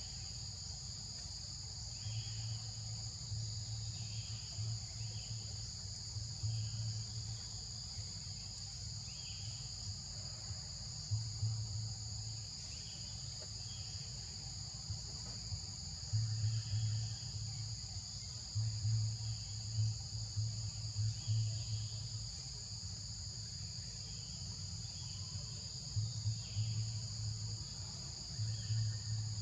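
Steady high-pitched chorus of forest insects droning, with faint short chirps every second or two. Low rumbling comes and goes in spells, loudest in the second half.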